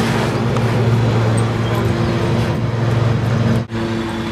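Steady low mechanical hum with overtones, briefly cut off about three and a half seconds in.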